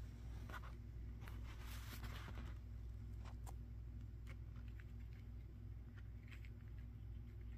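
Faint rustling and light clicks of a small paper model engine being handled by fingers, with a brief rustle about one to two and a half seconds in, over a low steady hum.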